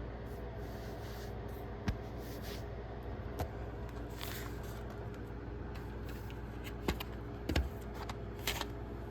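Plastic DVD case and its packaging being handled and opened: a few scattered sharp clicks and brief rustles over a steady low hum.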